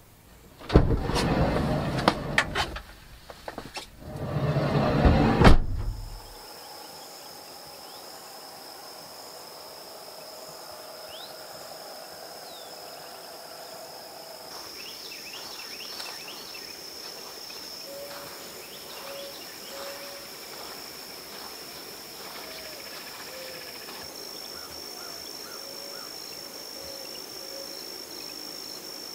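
Loud rustling and knocking for the first few seconds, then a steady, high, even trill of insects, crickets or similar, which grows louder about halfway through, with a few faint short chirps over it.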